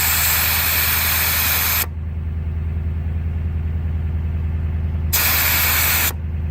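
Air hissing out of a pickup truck tyre valve in two bursts, the first about two seconds long and the second about a second, as the tyre is let down to about 20 psi for more grip in deep snow. A steady engine hum runs underneath.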